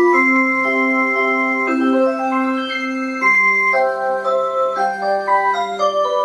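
A musical clock playing a melody in electronic, organ-like tones: held chords that move from note to note every half second or so.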